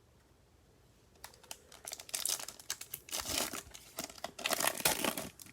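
Crinkly trading-card pack wrapper being torn open and crumpled, starting about a second in as a dense crackling rustle with sharp tearing snaps.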